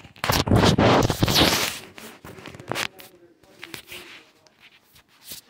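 Handling noise from the recording phone: rustling and scraping against fabric, loudest in the first two seconds, then a few scattered clicks.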